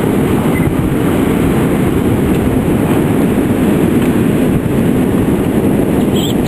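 Strong wind from a passing hurricane buffeting the microphone as a steady low rumble, over the roar of heavy storm surf breaking on the shore.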